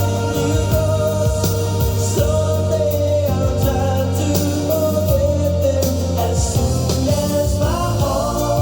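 A song with a singing voice over a steady, heavy bass line, played through a JBL Charge 6 portable Bluetooth speaker.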